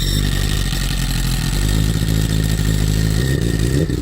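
BMW S1000RR inline-four motorcycle engine, fitted with an STM dry slipper clutch conversion, idling steadily, then a quick blip of the throttle near the end that sends the revs up.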